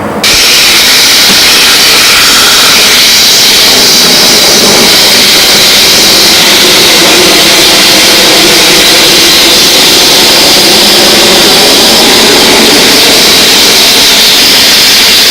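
A steam cleaner's nozzle jetting steam in a loud, steady hiss that starts abruptly.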